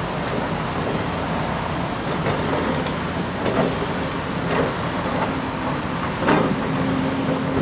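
Diesel engines of a large excavator and dump trucks running steadily at work, with three sharp clanks about three and a half, four and a half and six seconds in.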